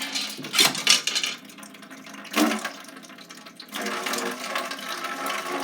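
Hard plastic knocks and clunks as a water filter canister is handled, then water pouring and sloshing from about four seconds in.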